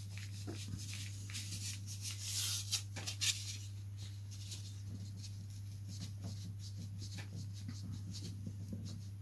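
A Du-Bro quick hinge slotter being pushed and worked into the balsa edge of an aileron to cut a hinge slot: faint scratchy scraping and small clicks, busiest about two to three seconds in, over a steady low hum.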